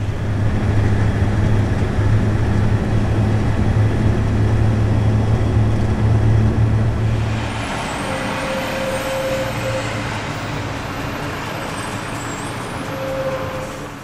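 Outdoor road traffic noise: a steady low engine hum for about seven seconds, then lighter, more spread-out street traffic with a short tone twice, fading out at the end.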